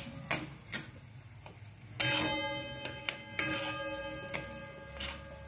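Metal spatula knocking and scraping against a brass pan while stirring thick semolina. A few light knocks early on, then two harder strikes, about two seconds in and again a second and a half later, each leave the brass pan ringing with a steady, several-note tone that slowly fades.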